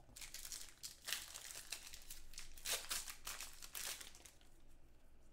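Trading-card pack wrappers crinkling and tearing as packs are opened and handled, a run of irregular crackles.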